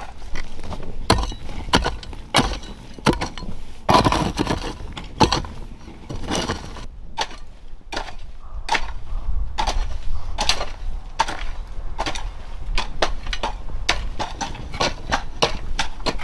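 Irregular sharp knocks and clatter of objects being handled, several a second, with a denser scraping, rustling stretch about four seconds in.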